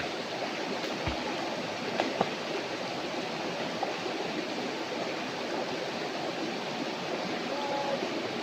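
Steady rush of flowing water from a small waterfall.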